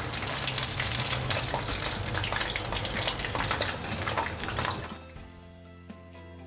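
Tempura-battered prawns deep-frying in hot oil, a steady sizzle full of fine crackles. About five seconds in the frying cuts off and soft background music takes over.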